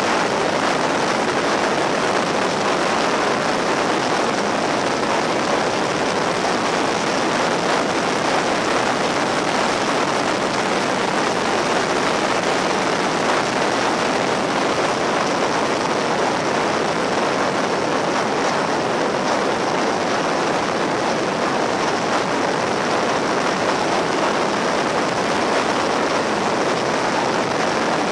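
Steady wind rush and road noise from a Yamaha XT1200Z Super Ténéré motorcycle cruising at speed, picked up by an on-board camera, with no clear engine note standing out.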